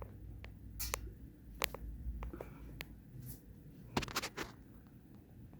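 Hampton Bay Quick Connect ceiling fan running on low speed: a faint low motor hum with scattered light clicks and rustles, a small cluster of them about four seconds in.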